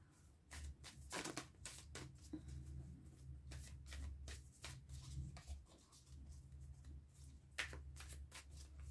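A deck of oracle cards being shuffled by hand: faint, irregular flicks and slides of card against card, over a steady low hum.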